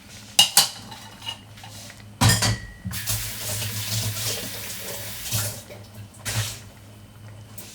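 Kitchen tap running for a couple of seconds, with a few sharp clicks and a clunk of kitchenware before it and two short splashes after.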